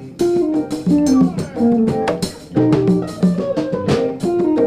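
Live jazz band playing: a melodic line of plucked string notes stepping up and down over a drum kit keeping a steady beat with cymbal hits.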